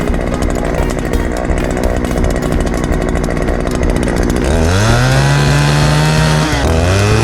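Chainsaw engine running with a rough, rapid chatter, then revving up steeply about four and a half seconds in and holding at high speed, dipping briefly near the end before revving again.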